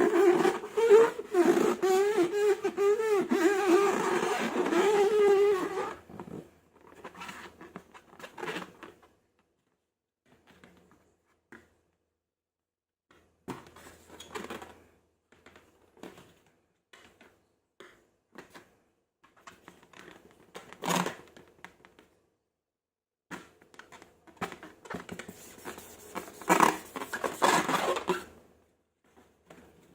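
Air squealing out of a stretched balloon neck, a loud wavering tone for about six seconds, followed by scattered soft crackles and clicks of slime being handled.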